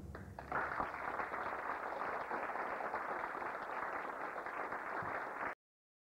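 Audience applauding, sounding dull and muffled with no top end, and cutting off abruptly about five and a half seconds in.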